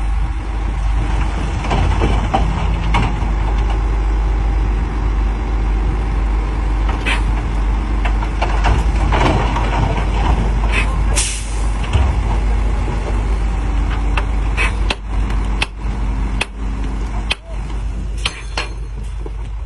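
Heavy machinery running with a steady low rumble, broken by repeated sharp knocks and short bursts of hissing.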